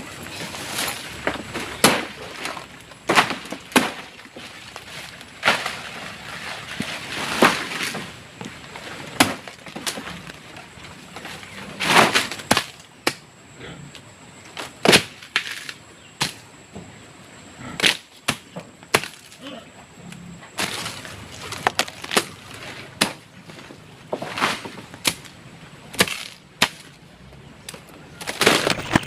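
Irregular hard knocks and cracks from manual clearing or construction work, spaced unevenly, some with a short scraping or crunching tail.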